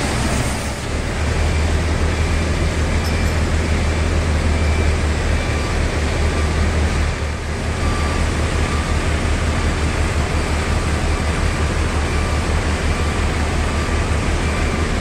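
High-pressure water jet blasting a steel ship's hull: a steady loud hiss of spray over a deep, pulsing engine hum, dipping briefly twice.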